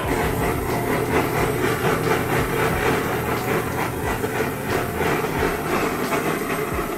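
Handheld butane blowtorch running with a steady hiss, its flame played over a split beef marrow bone.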